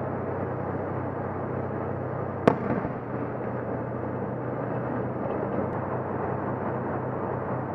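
Steady drone of a tank's diesel engine, heard from on top of the turret, with a single sharp bang about two and a half seconds in, a gunshot or distant blast in street fighting.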